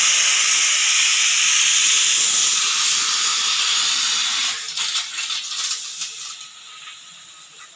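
Pressure cooker whistle releasing steam in a loud steady hiss. About four and a half seconds in, it breaks into a sputtering flutter and dies down to a faint hiss as the pressure is let off.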